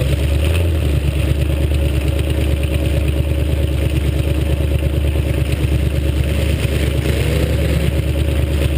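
Demolition derby car's engine running steadily, picked up by a camera mounted on the car's roof.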